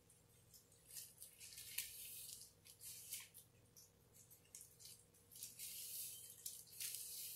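Faint, high-pitched rustling swishes of long hair being sectioned and handled with gloved hands, in several short bouts.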